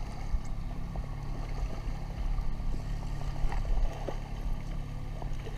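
Yamaha outboard motor running steadily at low speed, a low, even engine hum.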